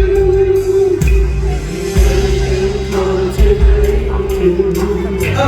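Live pop band music played loud through a sound system: a single note is held, slightly wavering, through the whole stretch over bass and drum beats.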